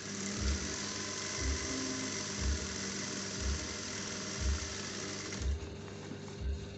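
Juki industrial sewing machine running steadily while stitching fabric, stopping about five and a half seconds in. A steady music beat thumps about once a second underneath.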